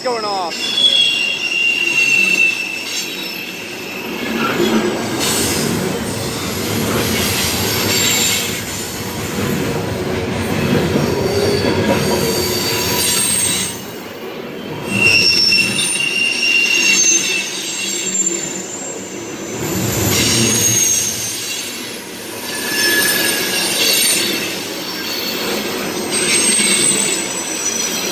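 Loaded coal hopper cars of a freight train rolling past at speed: a continuous heavy rumble and clatter of steel wheels on rail that swells and eases every few seconds, with short high-pitched wheel squeals now and then.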